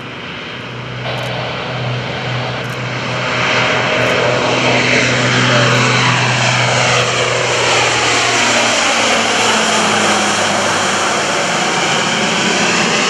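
Lockheed C-130J-30 Hercules taking off and climbing overhead, its four Rolls-Royce AE 2100 turboprops and six-blade propellers running at takeoff power. The low propeller drone grows louder over the first few seconds and drops a little in pitch about eight seconds in as the aircraft passes over.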